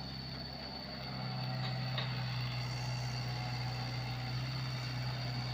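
Komatsu PC75UU mini excavator's diesel engine running steadily under working load as it moves soil. The engine picks up about a second in, with a thin high whine over it.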